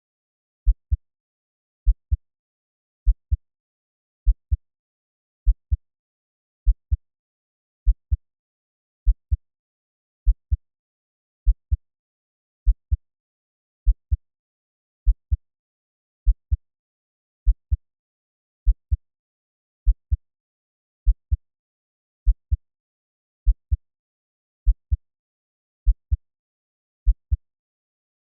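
Slow, steady heartbeat sound at 50 beats per minute: deep, low double thumps (lub-dub) about every 1.2 seconds, with silence between beats.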